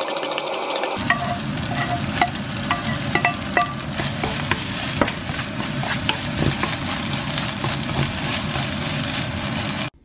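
Egg fried rice sizzling in a nonstick wok as a wooden spatula stirs and scrapes through it, with sharp little taps of the spatula on the pan over the first half. The frying cuts off suddenly near the end.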